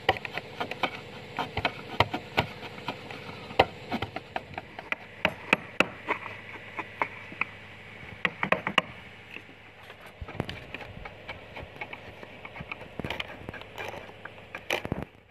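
Wood-carving chisels cutting into wood: irregular sharp knocks and taps of chisel strokes, over a steady background drone.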